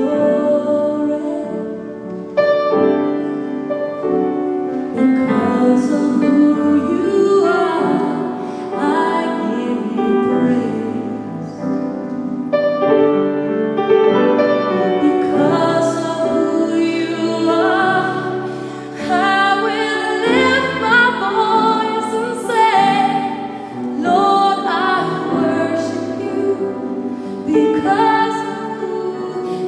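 A woman singing a slow gospel song into a microphone, with piano accompaniment.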